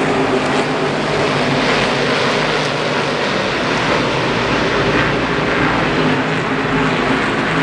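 Race car engines running in the pits, a loud, steady rumble with several held engine tones and no break.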